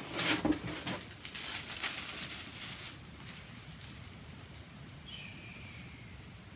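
Packing wrap rustling and crinkling as small resin pieces are handled and unwrapped, densest in the first second and dying away after about three seconds. Then it is quiet, apart from one short high chirp that falls in pitch about five seconds in.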